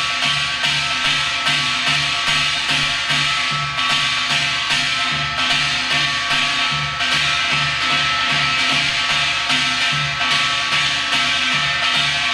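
Korean drum playing a fast hwimori rhythm of Gyeongsang shamanic gut music, an even run of strokes about two to three a second, with steady ringing tones sounding behind them.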